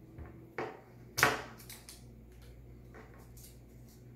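Scissors snipping through construction paper: two short sharp snips about half a second apart, around a second in, then fainter handling of the paper.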